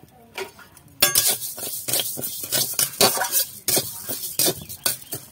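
A metal spatula scraping and stirring dry split moong dal around a metal kadai, rapid scraping and clinking strokes that start about a second in. The dal is being dry-roasted with no oil yet, so the grains rattle rather than sizzle.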